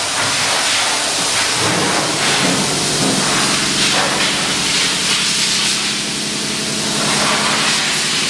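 Loud, steady hiss, with a steady machine hum joining about three seconds in.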